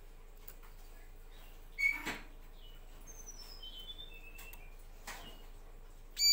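Caged bar-winged prinia (ciblek) calling in short chirps: one sharp call about two seconds in, a faint quick run of notes stepping down in pitch a little later, and a loud doubled call right at the end. Between the calls come a few soft ticks as it hops on the cage.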